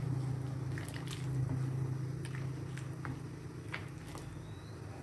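Plastic ladle stirring coconut-milk gravy in a wok: soft liquid sloshing with a few light ticks of the ladle against the pan, over a steady low hum.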